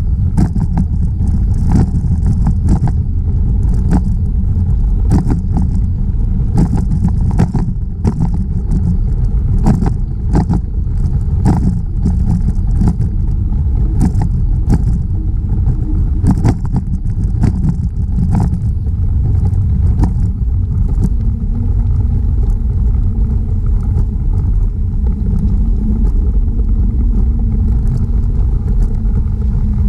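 Wind buffeting the microphone of a camera on a moving bicycle, with tyre and ride rumble: a loud, steady low rumble with many short clicks and knocks from bumps and rattles along the way.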